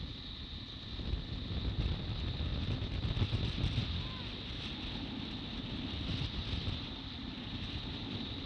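Outboard motor of a small open motorboat running steadily at speed, with wind buffeting the microphone and water rushing along the hull.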